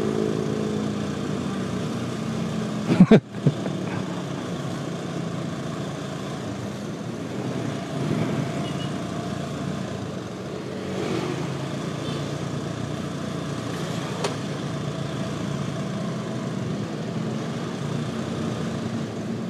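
Riding a motorcycle in traffic: a steady engine hum under a constant rush of road and traffic noise. A brief clatter of sharp knocks about three seconds in is the loudest sound.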